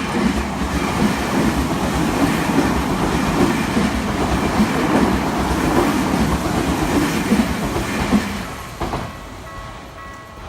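Tokyu Oimachi Line electric train passing over a level crossing, its wheels clacking rhythmically over the rail joints for about eight seconds before the sound fades away. Near the end the crossing's warning bell rings through again.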